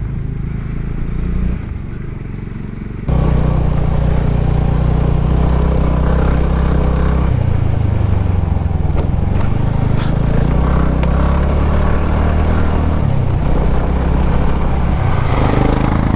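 TVS Ntorq 125 scooter engine running on a rough climb, getting suddenly louder about three seconds in as the throttle is opened, its pitch rising and falling after that.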